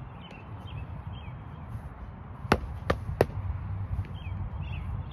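Foam-padded sparring swords striking: three sharp slaps in quick succession about two and a half seconds in.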